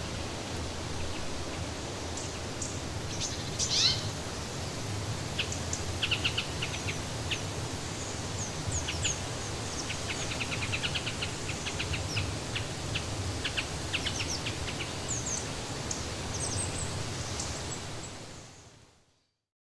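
Birds chirping in many short, high calls over a steady outdoor hiss, with one louder call about four seconds in; the sound fades out near the end.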